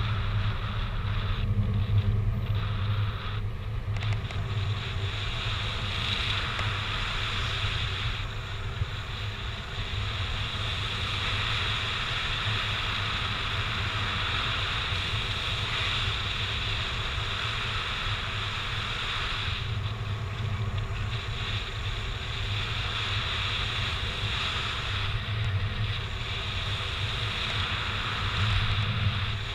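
Steady wind rush of airflow across the microphone of a camera carried on a paraglider in flight, with a low buffeting that swells now and then.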